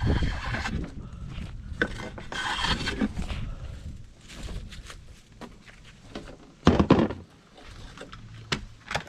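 Wooden parts of a sliding box rubbing and scraping as a panel is slid along, then a loud knock about seven seconds in and a few sharp clicks near the end as the wood is handled and set in place.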